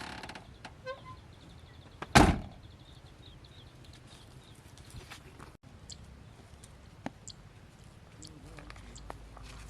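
A car door shutting with a single heavy thump about two seconds in, followed by faint small clicks and knocks.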